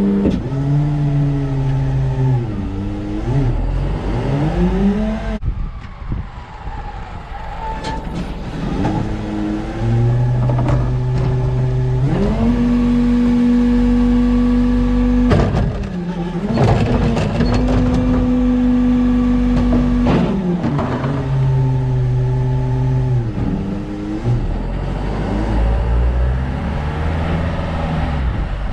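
New Way Mamba rear-loader garbage truck's engine running, repeatedly rising to a steady higher speed, holding for a few seconds, then dropping back. A few metallic clanks come about halfway through.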